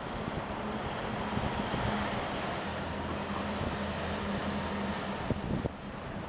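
Construction site din: a steady engine hum from heavy machinery over a broad noise wash, with a couple of short knocks about five and a half seconds in.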